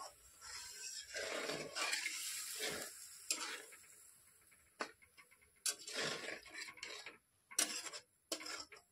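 Flat steel spatula stirring a thin, watery masala gravy in a metal kadhai: repeated wet swishing strokes, with several sharp clinks where the spatula knocks the side of the pan.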